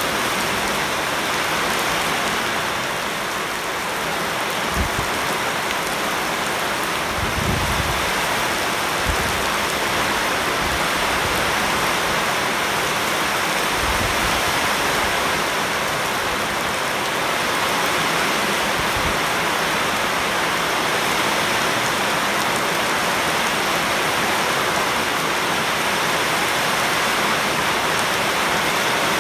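Heavy rain pouring steadily onto leaves and a flooded paved yard, with a few brief soft low thumps now and then.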